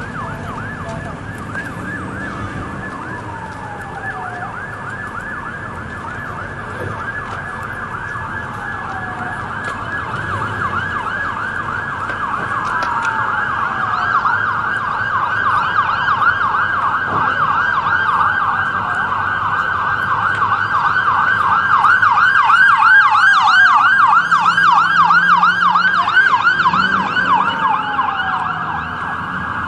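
Emergency vehicle sirens. One siren sweeps down in pitch every two or three seconds. About halfway through, a second siren joins in a fast yelp and grows louder, then drops back near the end.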